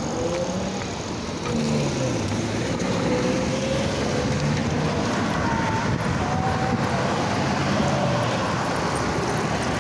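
Road traffic, cars passing on the road alongside, mixed with a steady rush of noise from riding along, with a few faint wavering engine tones drifting in and out.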